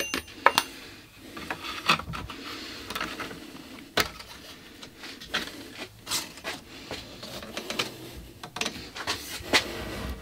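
Hands working a 2x48 abrasive sanding belt around the wheels and steel frame of a belt grinder, with the motor off. The belt rustles and rubs, broken by a scattered series of sharp clicks and knocks.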